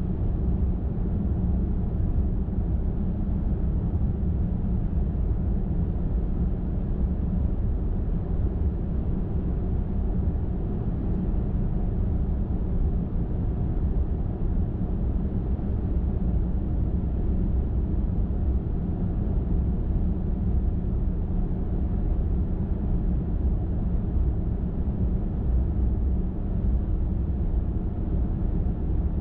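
Car driving at steady speed on a highway: constant road noise from tyres and engine, heaviest in the low end, with a faint steady hum and no change throughout.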